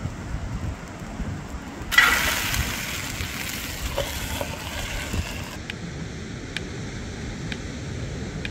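Whole octopus frying in a hot skillet: a sudden sizzle about two seconds in as it goes back into the pan after turning, fading over a few seconds. Then wind and ocean surf.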